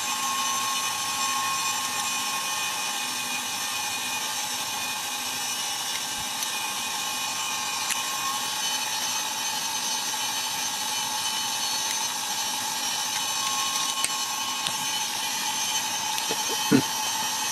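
Hot-air rework station blowing a steady hiss with faint steady whine tones, heating a small circuit board to melt the solder and free its components. A short click near the end.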